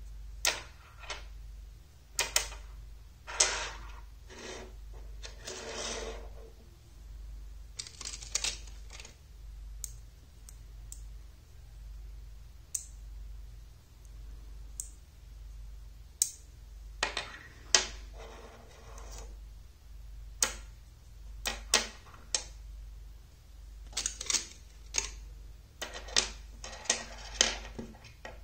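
Small magnetic rods snapping onto steel balls with sharp metallic clicks, scattered irregularly, with a few short stretches of rattling as pieces are handled and set down on a wooden tabletop. A steady low hum runs underneath.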